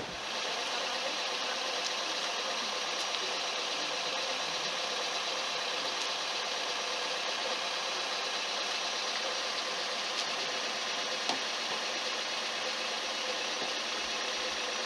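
Steady engine hum, as from an idling car, unchanging in level throughout, with one faint tick about eleven seconds in.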